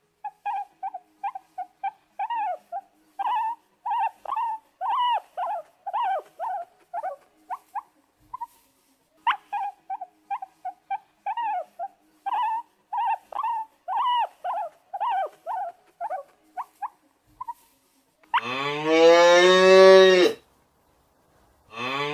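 Sea lions barking at each other in quick, short barks, two or three a second, with a short pause about eight seconds in. Near the end comes one long, deep, moo-like bellow of about two seconds, rising at its start.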